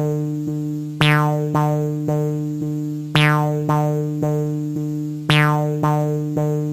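Music: a repeating pattern of struck notes on the same pitch that ring and fade, about two a second, with a stronger note every two seconds or so.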